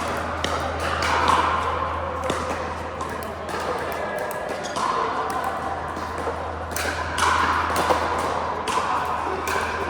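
Pickleball paddles popping against the hollow plastic ball, sharp hits at irregular intervals, over a murmur of voices and a steady low hum.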